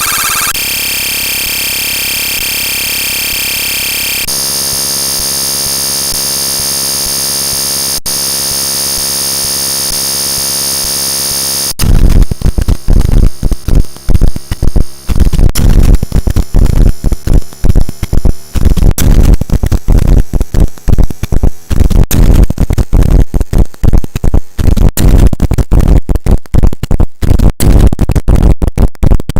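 The US Emergency Alert System two-tone attention signal digitally sped up to extreme rates, no longer recognisable as the alarm. It is a loud steady buzz of layered tones that shifts to a new chord twice. About twelve seconds in it breaks into harsh crackling noise that flickers faster and choppier toward the end.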